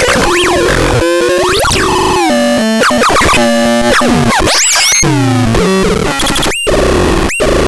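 Electronic synthesizer (no. 20036) sounding a rapid jumble of electronic beeps, swooping pitch glides and stepped tones. About six seconds in it settles into a repeating pattern of short rising sweeps, roughly one every 0.7 seconds.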